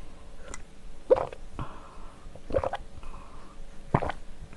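A person drinking from a mug close to the microphone, with three gulps about a second and a half apart.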